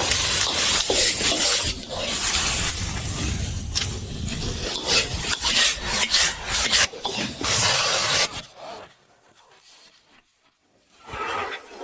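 Dense rasping and scraping, the kind of noise a busy kitchen makes while food is cooked in quantity. It drops away about eight and a half seconds in, and a fainter sound starts near the end.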